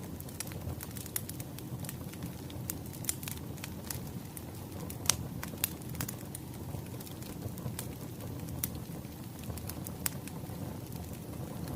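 Firewood burning: irregular crackles and pops over a low steady rumble, with one sharper pop about five seconds in.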